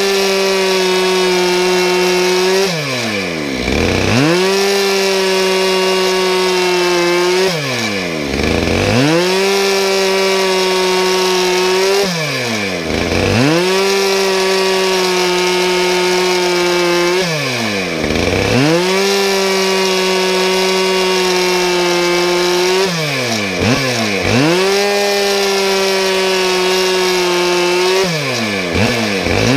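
Two-stroke chainsaw running at high revs while cutting through a log. Its revs drop sharply and climb back about every five seconds as the saw works the cut.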